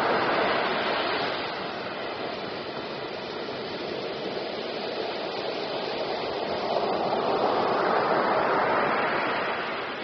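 Ocean surf: waves breaking and foaming on a beach, starting abruptly with a crash, easing, then swelling again as another wave breaks about seven to nine seconds in before subsiding.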